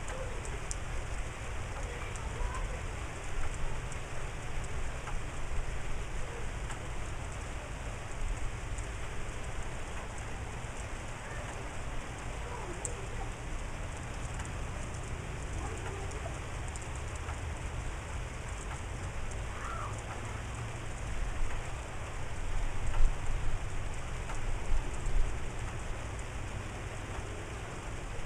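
Steady rain falling, with faint bird calls and a low rumble underneath that swells about three-quarters of the way through.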